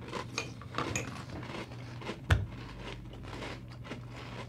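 Crunchy cereal being chewed by mouth, irregular small crackles, with one sharper knock about two seconds in.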